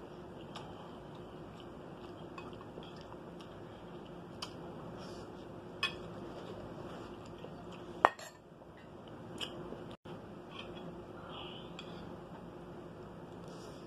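Metal fork clinking and scraping on a ceramic dinner plate while eating rice: scattered sharp clicks, the loudest about eight seconds in, over a faint steady hum.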